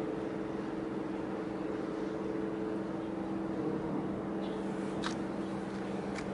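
Steady low drone of a passing container ship's engine, a constant hum with several held tones. A few short, faint ticks come in near the end.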